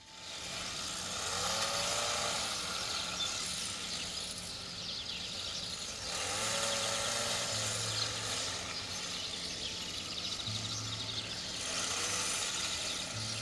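Rural village ambience: sparrows chirping and twittering continuously over a low, intermittent engine hum. Three longer calls rise and fall, about a second in, midway and near the end.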